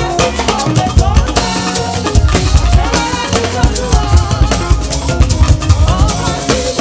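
Upbeat band music led by a busy drum kit and percussion, with pitched instrument lines playing over the beat.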